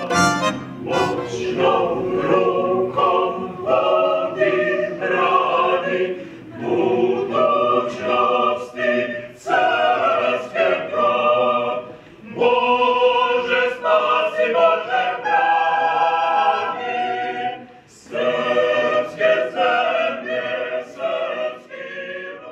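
Mixed choir of women's and men's voices singing unaccompanied in several parts, in phrases broken by short pauses.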